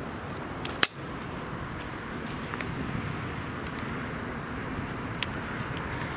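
Steady outdoor background noise with one sharp click about a second in and a few faint ticks later. The folding electric bike pulling away gives no distinct motor sound, being very quiet.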